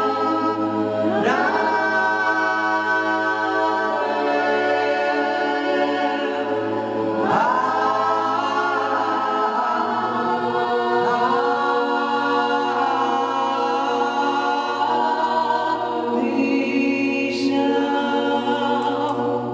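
A cappella choir singing as background music, several voices over a steady low held drone, with the upper voices sliding up into new chords about a second in and again about seven seconds in.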